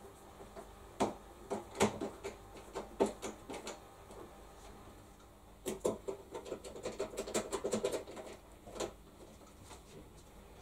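Clicks and knocks of plastic and metal parts being handled on a washing machine under repair. A few scattered knocks come first, then a run of rapid rattling clicks lasts about three seconds.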